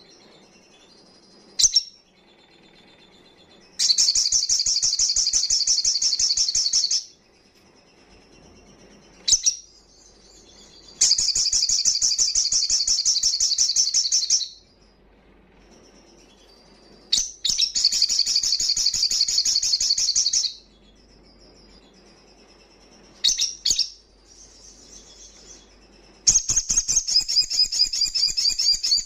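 Male olive-backed sunbird (sogon) singing: four loud, fast, high-pitched trills of about three seconds each, with short sharp chips between them.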